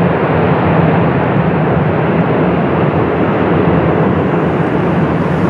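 Airbus A400M Atlas's four turboprop engines and propellers running on the runway: a loud, steady drone with a low hum underneath.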